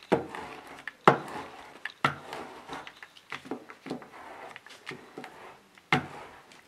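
A rubber printmaking roller is rolled firmly back and forth over a sheet of paper on a tabletop, pressing it onto an inked feather to take a monoprint. The paper rustles throughout. Three sharp knocks come about a second apart at the start, with another near the end, as strokes begin.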